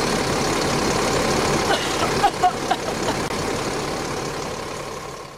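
Bus engine idling, a steady rumble with a hiss over it, with a few brief higher-pitched sounds about two seconds in; it fades out near the end.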